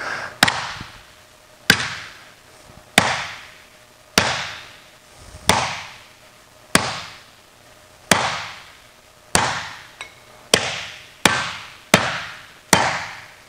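Ball-peen hammer hitting a TIG-welded aluminum sheet strip on a leather beater bag, about a dozen hard blows on the weld seam, each followed by a brief fading ring. The blows come roughly every second and a quarter and quicken near the end. It is a hammer stress test of the weld, which comes through without cracking.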